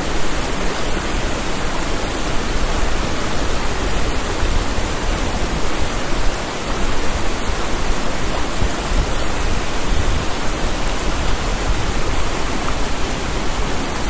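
Mountain stream rushing over rocks and small cascades: a loud, steady rush of water.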